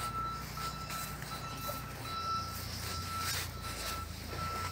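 Reversing alarm of a construction vehicle: one high steady tone beeping on and off about twice a second, with the vehicle's engine running beneath.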